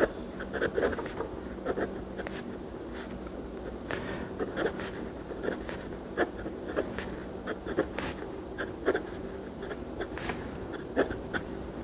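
Medium-nib fountain pen writing letters on notepad paper: short, irregular pen strokes, over a faint steady hum. The nib is fairly smooth, with little feedback and not scratchy.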